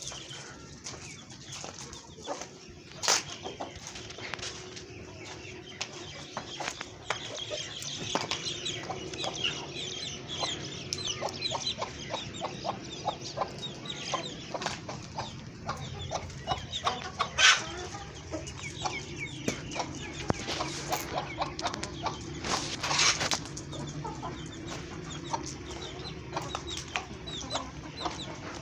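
A flock of chickens and chicks clucking and cheeping, with many short high calls throughout. A few sharp louder bursts stand out, about three seconds in and twice more after the middle.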